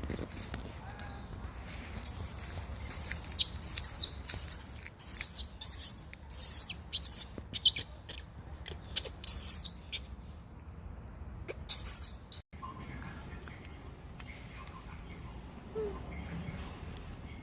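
Birds chirping in a run of short, very high calls for about eight seconds, with two more near the end of that stretch. After an abrupt break, a steady high-pitched insect drone takes over.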